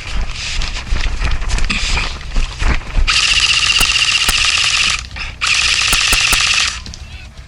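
Scattered knocks and rustling, then two sustained bursts of rapid full-auto fire from an airsoft electric gun (AEG), its gearbox cycling fast. The first burst starts about three seconds in and lasts about two seconds; after a short gap comes a second, shorter burst.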